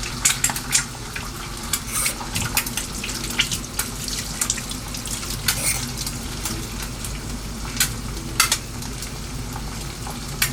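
An egg frying sunny side up in a pan of olive oil and butter, sizzling steadily with frequent sharp pops and crackles.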